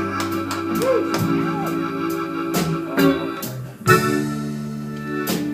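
Live blues band playing between sung lines: held keyboard-organ chords over steady drum hits, with a chord change about four seconds in.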